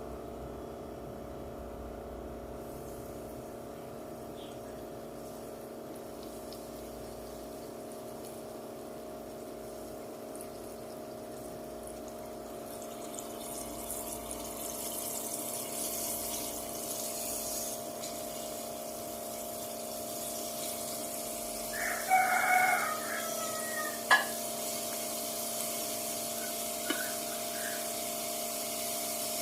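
Flour-coated sand goby fish frying in hot oil: a steady sizzle over a low hum, the sizzle growing louder from about halfway. About three quarters in there is a short pitched call, then a sharp knock.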